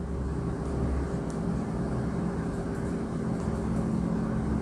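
Steady low mechanical hum with a few faint steady tones in it. Faint, light strokes of a marker on a whiteboard are scattered over it.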